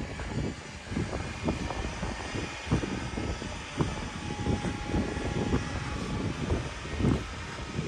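Wind buffeting the microphone in uneven gusts over the noise of a stormy sea's waves breaking on the stony shore.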